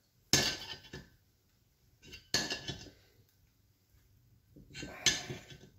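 Steel hand tool clinking and scraping against a VW engine case as it is worked into a drilled oil-gallery plug. Three sharp metallic clinks, each with a short ring, about two to two and a half seconds apart.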